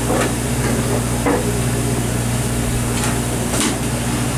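A steady low mechanical drone of the boat's machinery, with four sharp knocks scattered through it, the loudest about three and a half seconds in.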